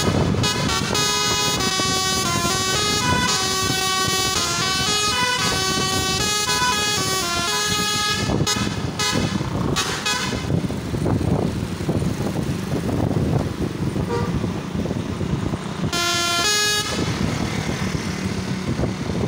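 Telolet basuri multi-tone bus horn playing a stepping tune of notes for about eight seconds, then a few short blasts. Steady noise follows, broken by one more short horn blast about sixteen seconds in.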